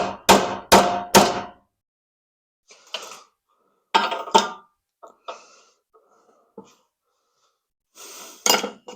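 Hammer blows on a socket driving a stuck rubber motor-cradle bushing out of a steel mini bike motor cradle: four quick ringing metal strikes at the start, then scattered clanks and knocks of metal parts being handled, and another couple of strikes near the end.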